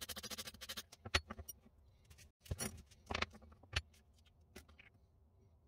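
Abrasive paper rubbed rapidly back and forth over a stainless steel rod, stopping a little under a second in; then a handful of separate clinks and knocks as the metal rod and wooden block are handled and set down on the bench.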